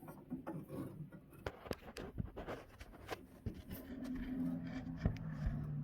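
Small clicks, taps and scrapes of hands working a car's inside door handle linkage and release cable, with a low steady hum coming in about four seconds in.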